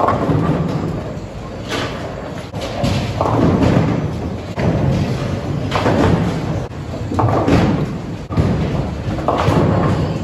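Bowling alley lane sounds: a steady low rumble of balls rolling, broken every second or so by sudden clattering crashes of balls striking pins.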